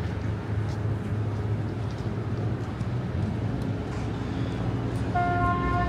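Urban traffic: a steady low rumble of passing vehicles. About five seconds in, a steady pitched tone sets in.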